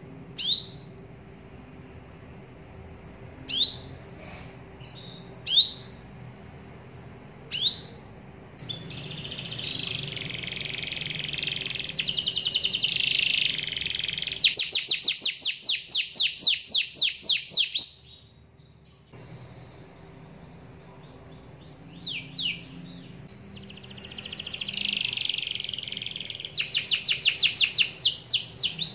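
Caged canary singing in full voice. A few single down-slurred call notes come first, then song broken by long, fast trills (rolls). There is a brief pause about two-thirds of the way through, after which the song starts up again with more trills.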